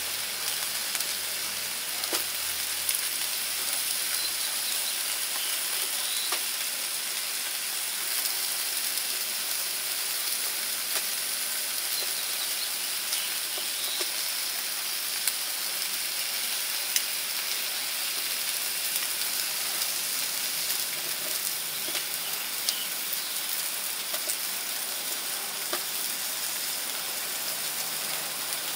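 Beef sizzling on a grill: a steady hiss with occasional sharp pops and crackles.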